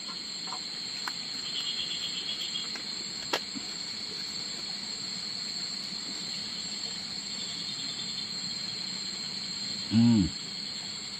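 Steady high-pitched drone of night insects, with a faint hiss under it. A single click about three seconds in, and a brief vocal sound from a man about ten seconds in.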